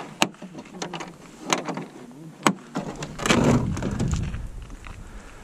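Plastic latches of a Milwaukee M18 Fuel tool case snapping, three sharp clicks about a second apart, followed by a louder rustling handling noise about three seconds in that fades away.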